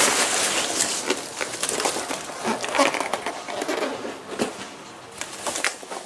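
Cardboard box and packing material rustling and crackling as hands rummage inside an opened parts box, with scattered light taps; busiest in the first second or so, then sparser.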